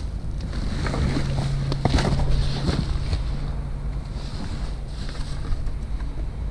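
Rummaging through wet trash in a dumpster: rustling and short knocks of items being handled, busiest about one to three seconds in, over a steady low hum.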